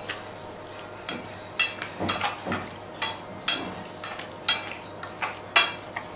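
Wooden chopsticks stirring raw pork chunks through caramel sauce in a stainless steel pot, knocking against the metal sides in about a dozen irregular sharp clicks, each with a short metallic ring.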